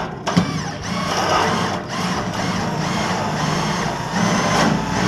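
Cordless drill driving a self-drilling screw into galvanized steel, the motor speed rising and falling over and over as the trigger is pulsed under steady pressure.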